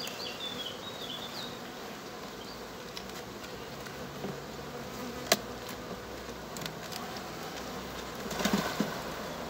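Honeybees buzzing steadily over an opened hive, with a sharp click about five seconds in and a short run of wooden knocks near the end as a hive tool pries at a frame.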